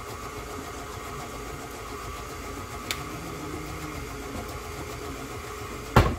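Electric mixer running steadily, beating cheesecake batter of cream cheese, sugar, eggs and vanilla. A sharp click about three seconds in and a loud knock near the end.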